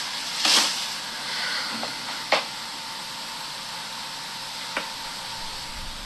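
Top-loading washing machine at the end of its cycle, the tub coasting slowly to a stop with a steady hiss. A few sharp clicks come through, one near the start and two more later on.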